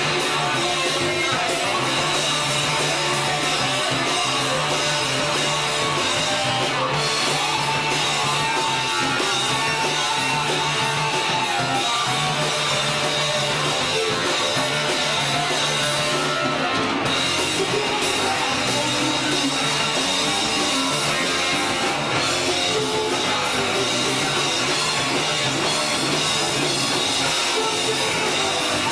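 Rock band playing, with electric guitar over bass and drum kit, continuous and loud with no singing.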